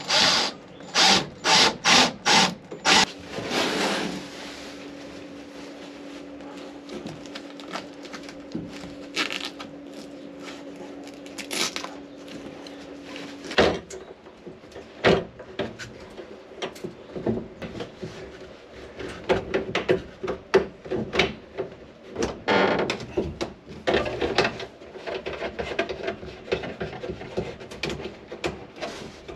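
Hands assembling plastic sink drain pipes and fittings under a bathroom vanity: irregular clicks, knocks and rubbing of plastic parts against the cabinet. A run of about six sharp knocks in the first three seconds.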